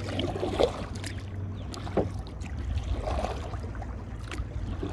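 Paddling a plastic kayak: a few paddle strokes dip and splash in the water, over a steady low rumble of water moving along the hull.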